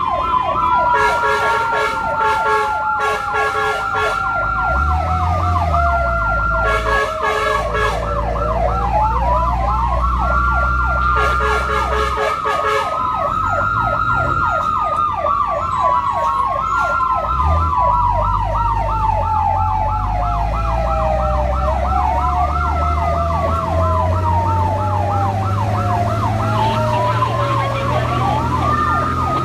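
Emergency sirens sounding together on a fire-response vehicle: a fast repeating yelp runs throughout while a slower wail falls over several seconds and sweeps back up, several times over. Several held horn blasts cut in during the first half, over a low engine rumble.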